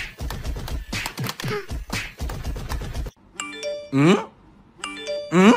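Battery-operated toy soldier's rapid electronic gunfire sound effect, rattling over a tinny tune. About three seconds in it cuts off and a short chiming electronic jingle with a loud rising swoop takes over, repeating about every second and a half.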